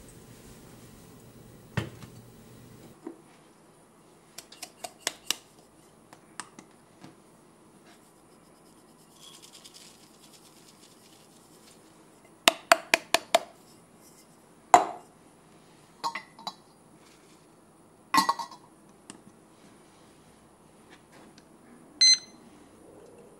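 Stainless-steel Kalita Wave dripper and glass server being handled: scattered small clicks and clinks, a quick run of five about halfway through, a sharper knock soon after and a short clatter a few seconds later. Near the end comes a short electronic beep as a button on the digital scale-timer is pressed.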